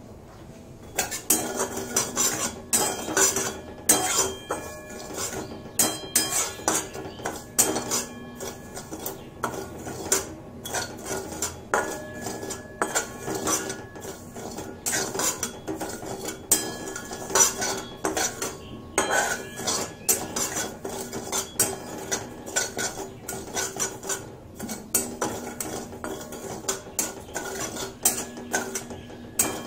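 Flat steel spatula scraping and clinking against a stainless steel kadai, stirring poppy seeds as they dry-roast without oil, with the pan ringing after the strokes. It starts about a second in and goes on in quick, irregular strokes.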